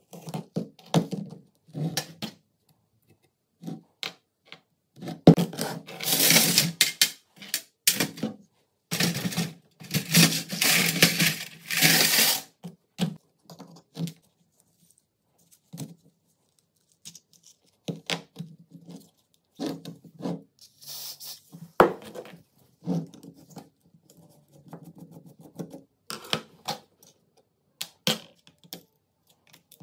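Rusty steel gun parts and hand tools being handled during disassembly: scattered clicks, taps and scrapes of metal on metal. About six to twelve seconds in comes a stretch of rushing, hissing noise in a few pushes.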